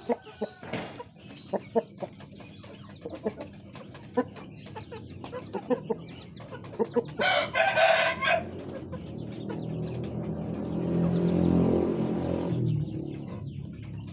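Chickens clucking with scattered short calls, a loud rasping squawk about halfway through, then a rooster crowing for about three seconds near the end.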